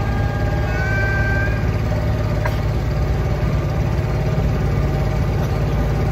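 Small river boat's motor running steadily at a constant speed.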